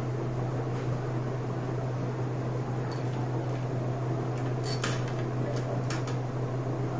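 Hot-air rework station blowing steadily from its handpiece, a constant rush of air over a low hum, while heating the camera's circuit board to desolder a small ceramic capacitor. A few faint clicks about five and six seconds in.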